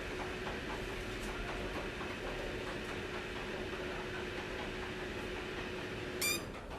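Desktop PC with a Corsair CX750M power supply running with a steady fan noise and low hum. About six seconds in, the PSU gives a brief high-pitched squeal, then the hum cuts off and the noise begins to fall away as the PC turns off: a power supply fault.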